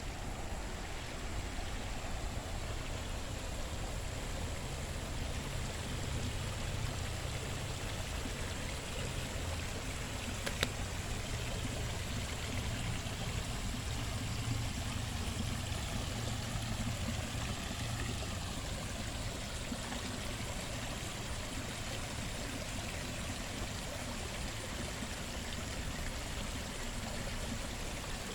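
Running water in a garden stream or waterfall, a steady rush with no pauses. One short sharp click about ten seconds in.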